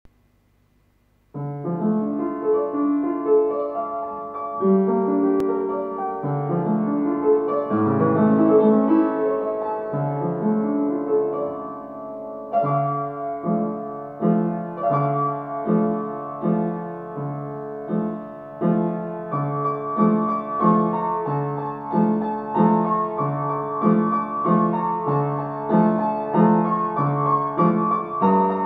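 Upright piano playing a Cefalonian song, solo. It begins about a second in, and from about halfway it settles into a steady rhythm of bass notes alternating with chords.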